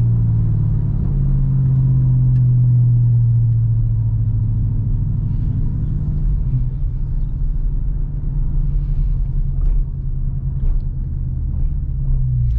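A Dodge Charger Scat Pack's 6.4-litre Hemi V8, fitted with a Hellcat airbox, running steadily at low revs with a deep, even rumble.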